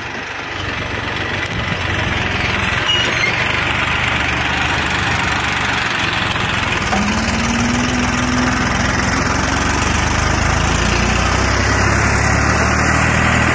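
Diesel tractor engine running steadily under load as it drags a rear leveling blade through loose soil.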